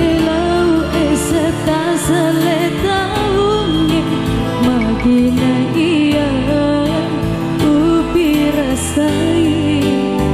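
Music: a song with a solo voice singing a wavering, ornamented melody over steady sustained accompaniment.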